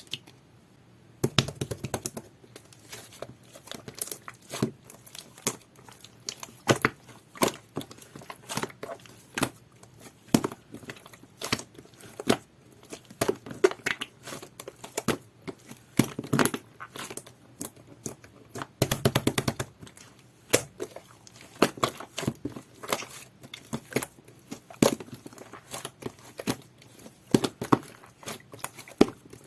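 Jelly-textured slime topped with whipped-cream slime being squeezed and poked by hand, giving irregular sticky pops and crackling clicks that start about a second in.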